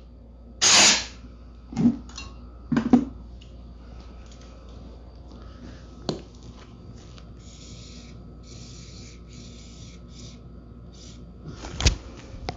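A short blast of compressed air from an air-hose nozzle blowing grass out of a mower's wheel-height adjuster, followed by a few knocks. Then a series of short hisses from an aerosol lubricant can sprayed onto the adjuster, and a sharp click near the end.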